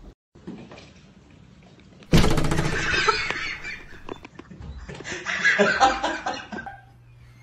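People laughing: a loud burst of laughter breaks out about two seconds in, and a second bout follows a little later, over quiet room tone.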